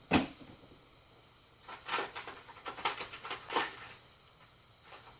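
A single knock, then a loose run of irregular clicks and rattles from small hard objects being rummaged through and handled.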